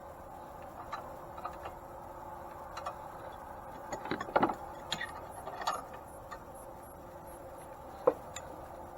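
Scattered clicks and knocks of antique grain mill parts being handled and fitted during reassembly, with a quick cluster about four seconds in and one sharp knock about eight seconds in.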